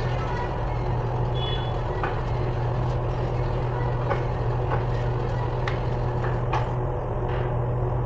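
A steady low mechanical hum, with scattered light clicks and knocks of metal parts and tools being handled at a forklift's drive gearbox.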